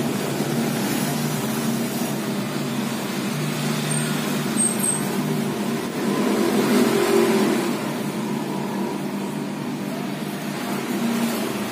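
A steady motor drone with a low hum, like a running engine, with road-traffic noise under it. It grows louder for a couple of seconds about six seconds in.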